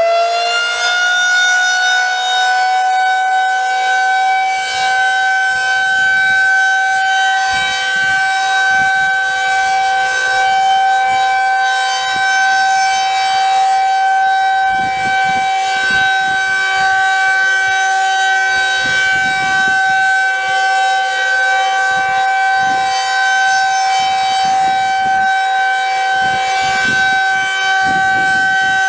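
Federal Signal 2001-SRN electromechanical rotating outdoor warning siren sounding its short alert: it finishes winding up in the first second or two, then holds a steady tone, turning slowly on its rotator.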